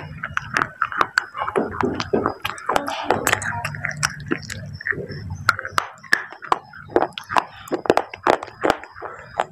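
Close-up crunching of dry baked clay pieces being bitten and chewed, with sharp crisp crunches coming several times a second.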